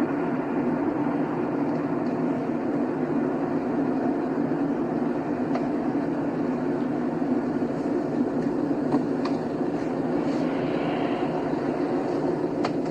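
A car driving along a highway: steady road and engine rumble. A few faint clicks sound in the last few seconds.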